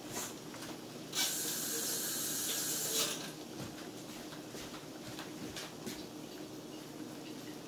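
Tomato meat sauce simmering in a skillet, with small scattered pops from bubbles breaking. About a second in, a steady hiss starts, runs for roughly two seconds, and then cuts off.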